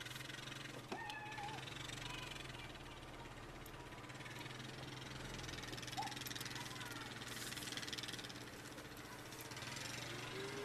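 A vehicle engine idling with a low steady hum, while cattle calves give a few short, high bawls: one about a second in and a couple around six seconds.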